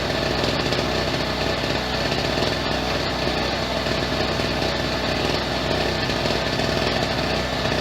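Pulsar PG1202S open-frame two-stroke generator running steadily with no load, warmed up to operating temperature: the steady drone of a small two-stroke engine.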